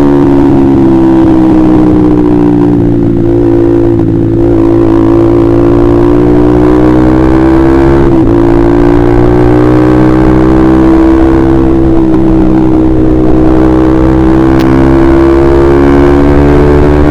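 Honda CBR150R's single-cylinder engine running through an aftermarket KJ Pro Performance exhaust while riding, a loud steady note that sags slightly and then climbs gently, with a brief break about eight seconds in.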